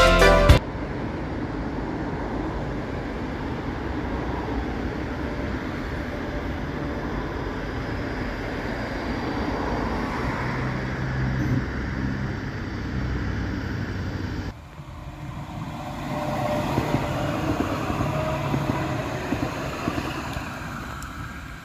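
Red DB S-Bahn electric train rolling past with a steady rumble of wheels on rail. About fourteen seconds in, a sudden cut to a tram passing, its rolling rumble swelling and fading with a faint whine in the middle.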